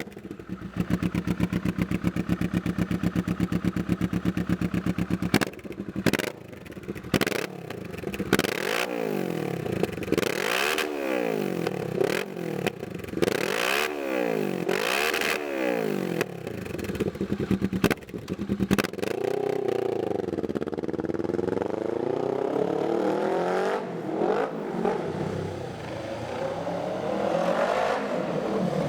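Kawasaki Vulcan S 649 cc parallel-twin running through a Jeskap full 2-into-1 exhaust with KS muffler tip. It idles steadily for about five seconds, is blipped in about five quick revs, and is then revved up more slowly and held at higher revs.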